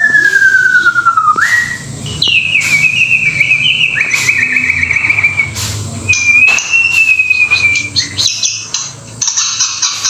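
White-rumped shama (murai batu) singing. It gives long, clear whistled notes that glide slowly in pitch: first a falling note that sweeps back up, then a long wavering higher note and another like it. About eight seconds in, the song breaks into fast, high chattering.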